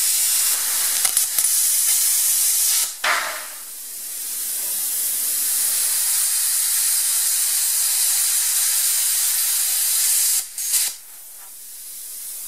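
Eastwood Versa Cut 60 plasma cutter cutting through 3/4-inch steel bar: a steady, loud hiss of the plasma arc and air jet. It dips about three seconds in and builds back up. About ten and a half seconds in it stops, leaving a fainter hiss that dies away.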